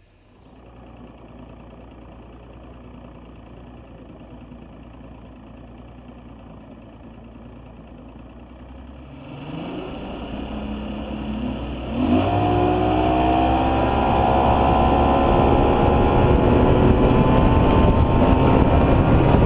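Boat outboard motor running low and steady, then opening up about nine seconds in and growing louder, its pitch climbing steadily as the boat accelerates.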